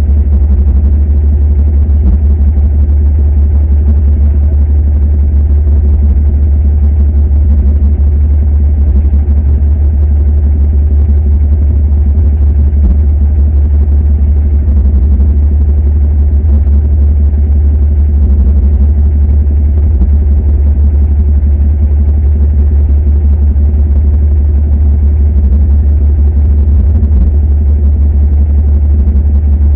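Diesel engine running steadily with a loud, deep, even drone that holds the same speed throughout.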